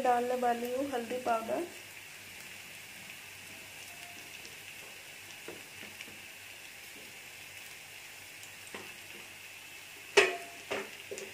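Oil sizzling faintly in a frying pan under sliced onion, green chilies, curry leaves and ginger. About ten seconds in, a wooden spatula starts stirring and knocks sharply against the pan a few times.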